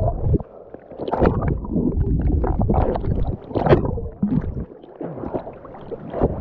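Water churning and bubbling around a swimmer who has just plunged into a lake, heard through a camera held under the surface. The sound comes in dense, irregular bursts and eases off near the end as the camera comes up.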